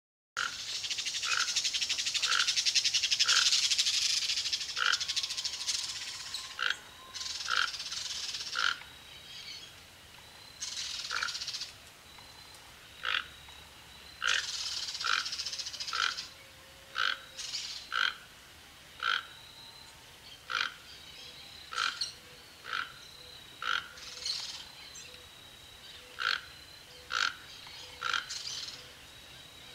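Toco toucan calling: a deep, croaking call repeated about once a second, at an uneven pace. A loud high hiss sounds behind it, strongest over the first six seconds, then fading in and out in spells.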